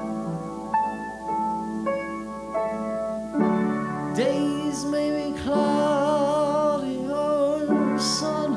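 Piano accompaniment playing a song. About three seconds in, a singer comes in and holds a long note with vibrato over the piano.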